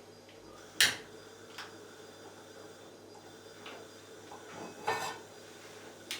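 Kitchen dishes and utensils being handled: a sharp clink about a second in, a couple of light taps, and a short clatter near the end.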